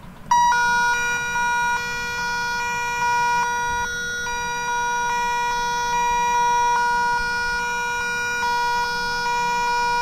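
Slowed-down recording of serial (UART) data for the string A to Z from a USB-to-TTL converter, played back as audio. It is a loud, buzzy electronic tone whose timbre shifts in steps about every 0.4 s as the high-low bit pattern changes, and it starts about a third of a second in.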